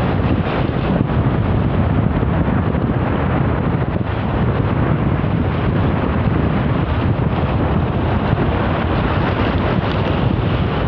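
Wind buffeting the microphone: a steady, deep rushing noise with no pitch to it.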